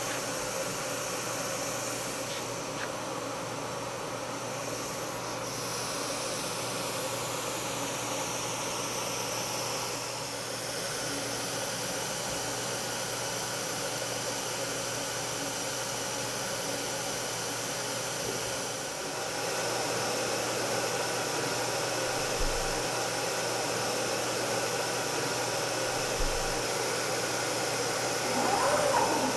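ShopSabre PRO 408 CNC router powered up and jogging its gantry: a steady machine hum and hiss with several held motor whines. Some pitches glide down a few seconds in, and the sound steps up a little about two-thirds through, with two soft low thumps near the end.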